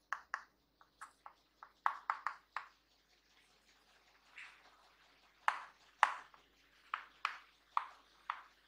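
Chalk tapping and scratching on a blackboard as words are written by hand: a string of short, irregular taps, with a brief pause in the middle.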